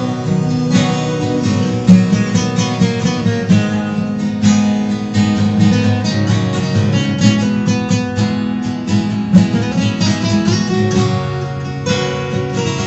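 Two acoustic guitars played together, strumming chords at a steady rhythm, with no voice over them.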